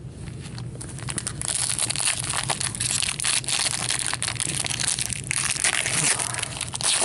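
Foil wrapper of a hockey card pack being torn open and crinkled. It is a dense crackling full of small clicks, which grows louder after about a second and a half.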